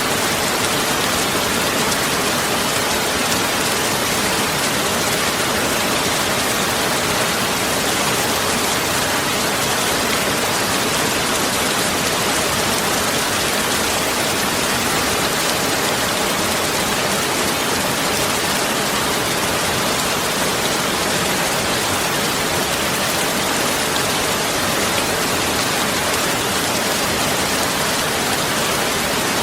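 Heavy rain falling steadily and evenly, a dense hiss of many drops with no gaps or swells.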